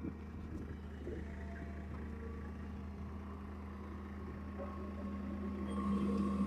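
Engine running steadily at a low hum, growing a little louder near the end, as a backhoe is loaded for transport.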